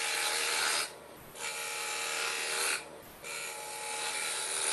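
Turning tool cutting a spinning wood blank on a wood lathe: three passes of shaving noise, split by two short breaks where the tool comes off the work.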